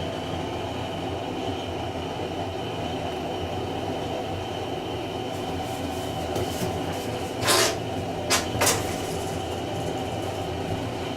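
Steady mechanical hum throughout, with three short scraping rustles about seven and a half to nine seconds in as a cut piece of rigid foam board is pushed into a hole to test its fit.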